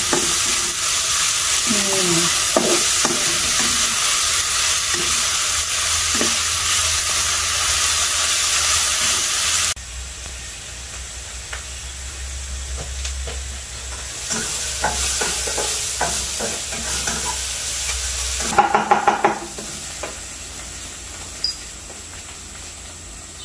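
A blended paste of garlic, shallots, lemongrass and ginger sizzling in hot oil in a wok as a spatula stirs and scrapes it. About ten seconds in the sizzle drops off abruptly to a much fainter level with a low hum underneath, and a short run of knocks comes near the end.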